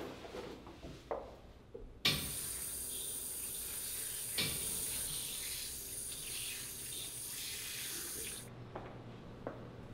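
Washroom sink tap running, water splashing steadily into the basin. It comes on suddenly about two seconds in and cuts off abruptly about six seconds later, with faint handling clicks before and after.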